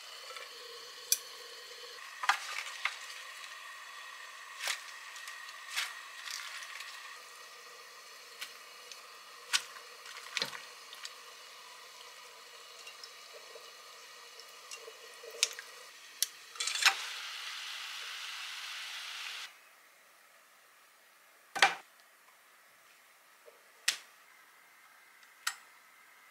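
Steady hiss of water boiling and steaming on the stove, with scattered sharp clinks of utensils and cookware. About 19 seconds in the hiss cuts off, leaving a quieter background broken by a few loud knocks.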